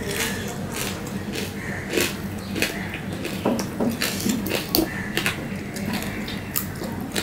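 Close-up eating sounds: chewing with irregular wet mouth clicks and smacks, and fingers mixing rice on a steel plate, over a low steady hum.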